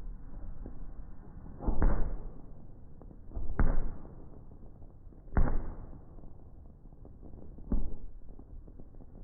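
Fireworks shells bursting: four booms about two seconds apart, each trailing off in a rumble.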